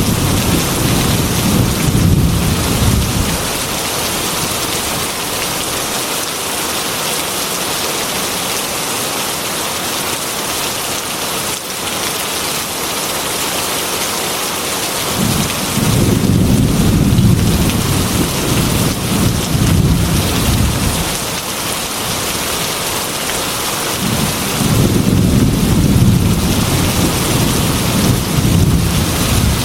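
Heavy rain pouring steadily on a metal roof, with rolling thunder rumbling three times: at the start, again around the middle, and near the end.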